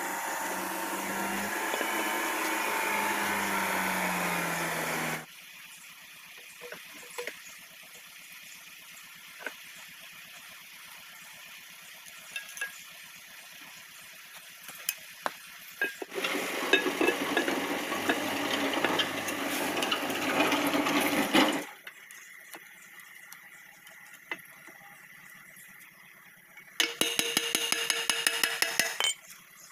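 Scattered sharp metal clinks of hand tools on a tractor front-axle housing as the pinion housing is fitted and bolted up, with louder stretches of mixed workshop noise at the start and in the middle, and a quick, even run of ratchet-wrench clicks near the end.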